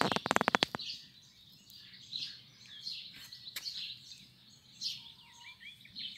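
Small birds chirping repeatedly in short high calls. In the first second there is a quick run of loud sharp clicks.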